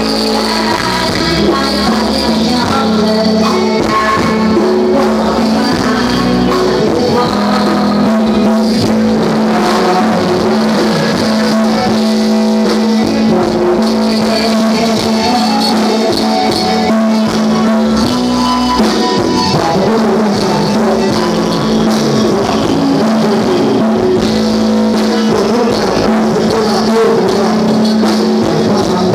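Live stage band music played loud through the PA system, with drum kit and keyboards.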